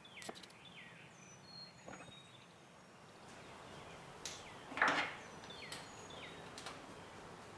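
Quiet room tone with faint, short, falling chirps repeating every second or two, typical of birds, plus a few light knocks; the loudest knock comes just before five seconds in.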